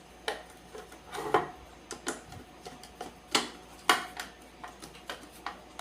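Hard plastic parts of an industrial wall socket being handled and fitted together: a string of irregular light clicks and taps.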